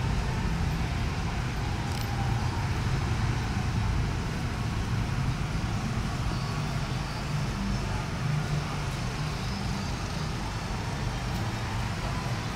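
Steady low rumble of road traffic with no single vehicle standing out.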